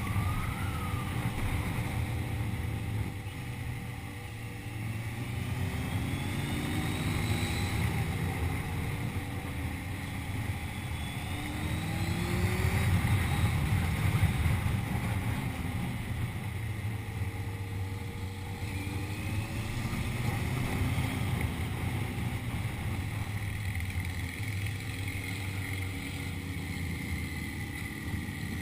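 Steady rushing roar of a waterfall, with a few faint rising and falling whistles over it.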